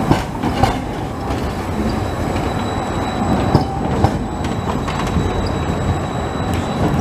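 Electric low-floor tram passing close by: a steady rumble of steel wheels on the rails, with scattered clacks and a faint high steady whine.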